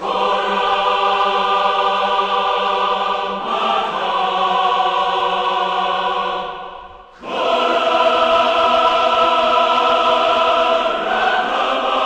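Choral music with long held chords. It fades out a little past the middle and comes back in strongly about a second later.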